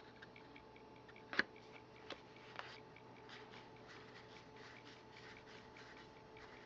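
Baseball cards being handled and slid off a stack: faint light ticks and rustles, with one sharper click about a second and a half in, over a faint steady hum.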